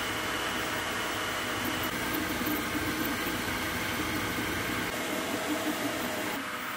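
Creality K1 Max 3D printer running a fast print: a steady rush of cooling-fan noise with the stepper motors' whining tones wavering and shifting in pitch as the print head moves. The sound changes character about six seconds in.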